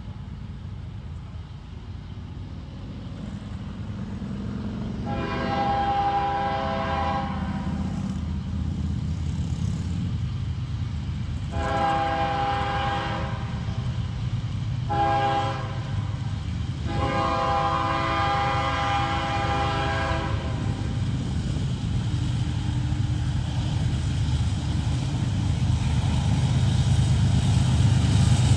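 Approaching CSX freight train's diesel locomotive horn sounding the grade-crossing signal: two long blasts, a short one and a final long one, each a chord of several steady tones. Under the horn, the low rumble of the locomotives grows steadily louder and is loudest near the end as they draw alongside.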